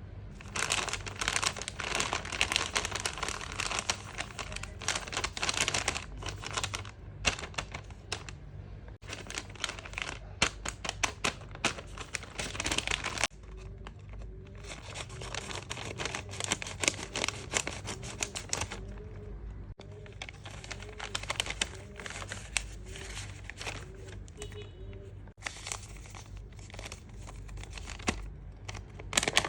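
Plastic blind-bag packaging crinkling and crackling as it is handled and torn open, in several long spells with short pauses between.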